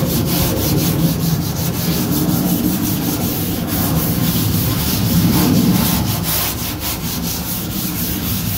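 Stainless steel scrubber scouring the grill's side table in quick repeated strokes, under the steady low drone of a plane passing overhead.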